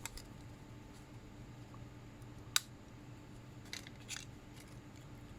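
Faint clicks and taps of small parts being handled, with one sharper click about two and a half seconds in and a few softer ticks a second later, over a low steady hum.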